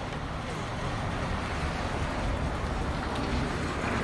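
Steady street background noise, an even hum of road traffic.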